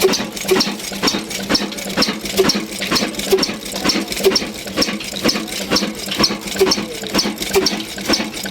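Ruston Hornsby heavy-oil diesel engine running steadily: a rhythmic mechanical clatter with a heavier knock about once a second over a steady hum.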